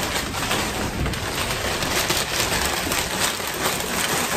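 Packing paper crinkling and rustling as glassware is unwrapped by hand, a dense irregular crackle.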